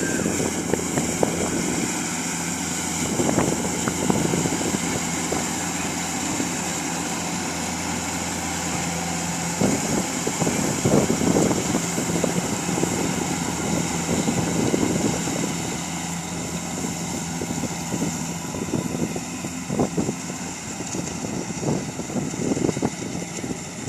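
A motor-driven cutting machine running steadily with a constant hum, getting louder and rougher in stretches every several seconds as it works.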